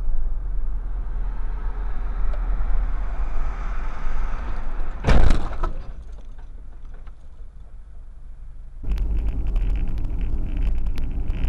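Car-interior road and engine noise, broken about five seconds in by one loud, sudden crash of a minibus striking the side of the car. After the impact the noise drops, and near the end steady road and tyre noise from another car takes over.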